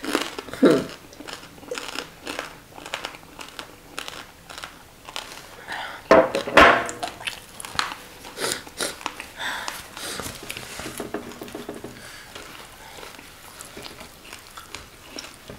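Close-miked chewing of fried tilapia and its bones: many short crunches and wet mouth clicks, loudest around six seconds in.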